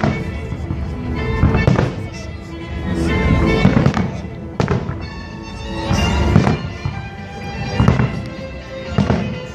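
Fireworks bursting in a string of bangs, about one every second or two, over music played for the display.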